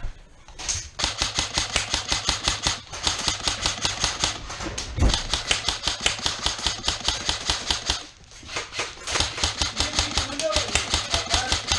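Krytac Trident MK2 CRB electric airsoft rifle firing on full auto in long, rapid bursts of even clicks. It breaks off briefly a few times and pauses for about a second near 8 s, then resumes. A heavy thump is heard about 5 seconds in.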